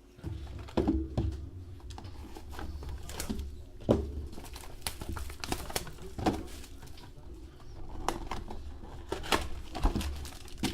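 Trading cards and their plastic and foil packaging being handled: crinkling and rustling, with sharp taps and clicks scattered throughout as cards are handled and set down.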